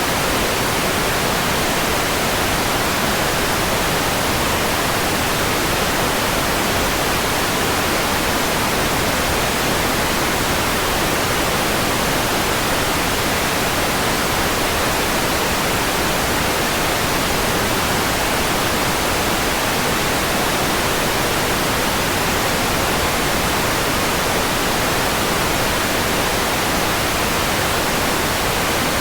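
Steady, unchanging white noise: an even hiss spread across all pitches, with no events.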